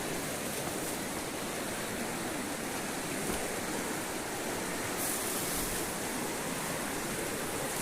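River water rushing with a steady, even hiss.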